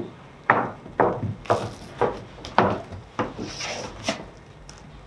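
Footsteps of shoes on a hollow wooden stage deck, about two steps a second, six in a row, then a knock on a wooden bench about four seconds in as someone sits down.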